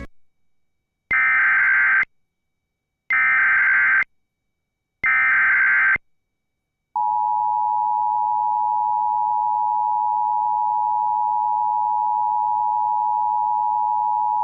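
Emergency Alert System header: three SAME data bursts, harsh digital screeches of about a second each, spaced about two seconds apart. About seven seconds in, the EAS two-tone attention signal starts and holds steady, announcing the alert message that follows.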